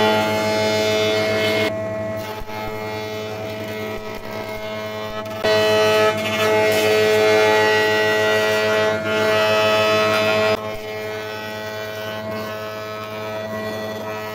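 Elektra Beckum planer-thicknesser running as a jointer, its motor giving a steady hum and whine while a board is fed over the spinning cutterhead. The cutting gets louder briefly at the start and again for about five seconds in the middle, as the wood passes over the knives.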